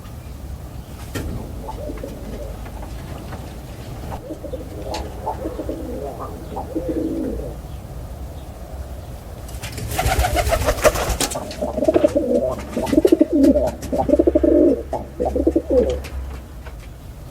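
A pigeon cooing: two runs of low, throaty, pulsing coos, the second louder. A short burst of noise comes about ten seconds in, between the two runs.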